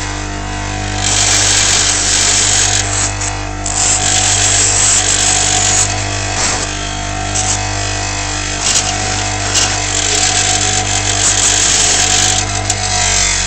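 Bench grinder running with a steady motor hum while its wheel grinds the rough edges off steel hacksaw-blade lock picks, the grinding coming in repeated spells of hissing noise over the hum.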